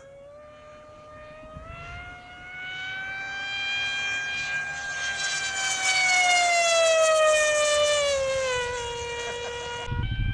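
Electric RC plane's motor and propeller whining as it makes a pass: the pitch rises and the sound grows louder, then the pitch drops as it goes by. Near the end a low rush of wind noise suddenly comes in.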